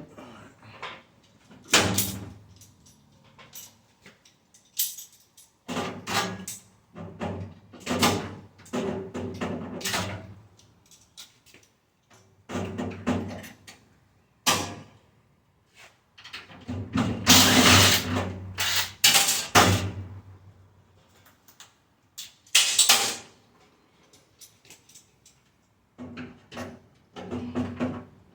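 Stainless steel dishwasher panels and parts being handled and pried at: irregular metal clanks, bangs and rattles, some ringing briefly, with a longer stretch of clattering around two-thirds of the way in.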